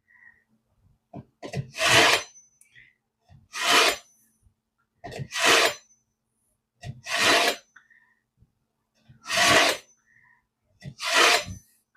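Kitchen knife blade drawn through the middle slot of a pull-through knife sharpener, six scraping strokes of about half a second each, roughly one every two seconds, each with a small click as the blade is set in.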